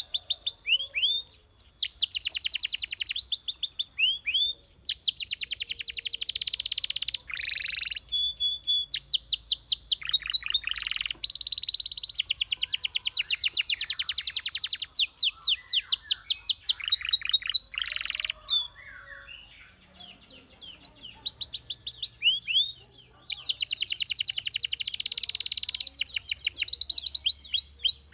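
Belgian canary singing: fast trills and rolls of rapidly repeated high notes, one phrase after another, with a brief pause about two-thirds of the way through.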